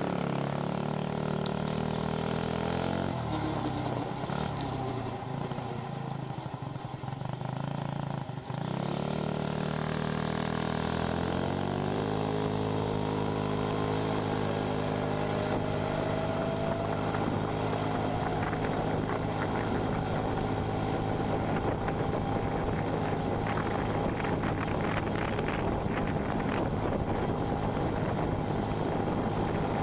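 Single-cylinder engine of a 49cc Huasheng CVT scooter running under way. It eases off and picks up twice while rolling slowly, then accelerates from about ten seconds in and settles into a steady cruise, with a whine that rises in pitch and then holds.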